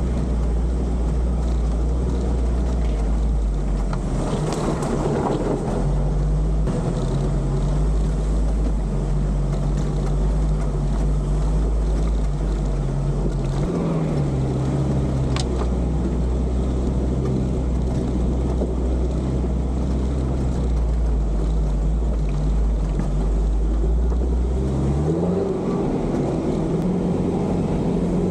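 Engine of an off-road competition 4x4 running under load at low revs, heard from inside the cab. Its pitch shifts with the throttle about halfway through and revs up near the end, and there are two sharp knocks about four and fifteen seconds in.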